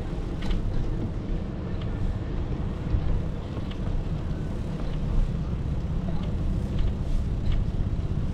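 Wind rumbling steadily over the microphone of a moving bicycle, with a few faint short ticks.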